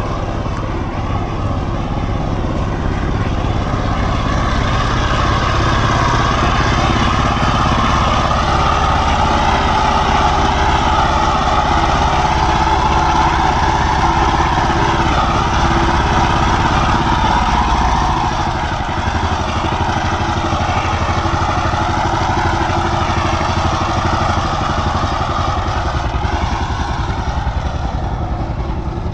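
Single-cylinder diesel engine of a two-wheel walking tractor (power tiller) running steadily under load as it hauls a trailer piled with straw. The sound eases a little about eighteen seconds in.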